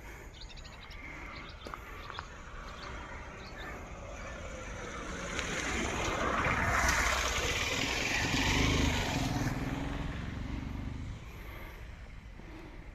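A motor vehicle passing by, its engine noise growing louder, peaking about seven to nine seconds in, then fading away. A few small bird chirps in the first couple of seconds.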